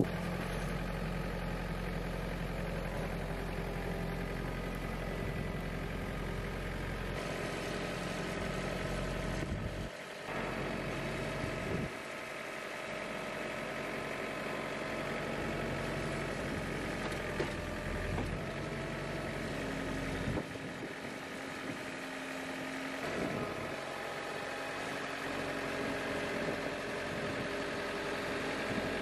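Case IH Farmall 35B compact tractor's engine running steadily while the front-end loader works. The engine note shifts several times as the loader's hydraulics are used to nudge and clamp a wooden railway sleeper.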